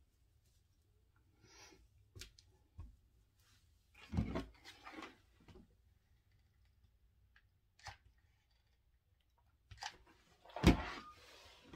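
Craft materials being handled on a work table: scattered light knocks and rustles, a louder cluster about four seconds in, and a dull thump near the end, the loudest sound.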